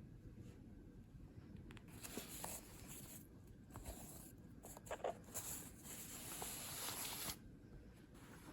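Faint rustling and a few small clicks of objects being handled, with a longer spell of scratchy rustle in the middle.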